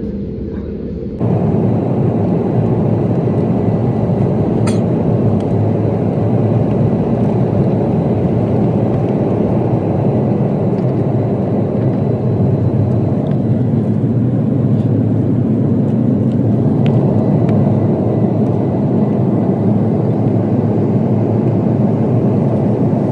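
Jet airliner cabin noise during the takeoff run, liftoff and initial climb: a loud, steady rush of engine and air noise that jumps up suddenly about a second in and then holds level.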